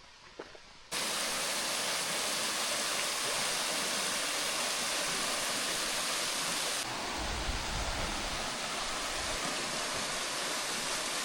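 Small, shallow waterfall rushing steadily, cutting in abruptly about a second in. Its flow is low because it hasn't rained in a while. A low rumble comes in for a couple of seconds past the middle.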